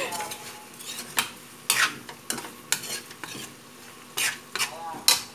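Metal spatula scraping and clinking against a metal wok as saucy chicken adobo is stirred, in irregular strokes, with a faint sizzle of the food frying underneath.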